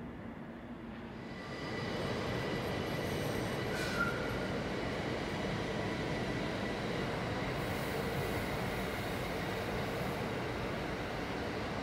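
SNCB Desiro electric multiple unit running through on the rails: a steady rumble of wheels on track that swells about a second and a half in, with a faint high whine over it and a single click near the four-second mark.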